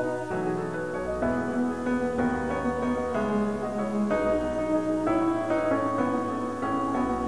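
Piano playing a choral anthem, the chords changing about once a second, with one high note held for over a second near the end.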